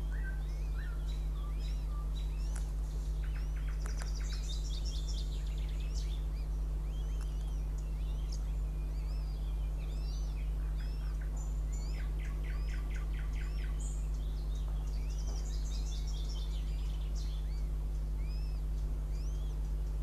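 Small birds chirping and trilling all through, short, rising-and-falling notes with a few rapid trills, over a steady low electrical hum.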